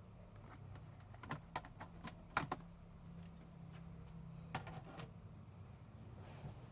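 Small hard parts being handled during a laptop SSD upgrade: a cluster of sharp clicks and taps over a faint low hum starting about a second in, the loudest in the middle of the cluster, then two more a few seconds later.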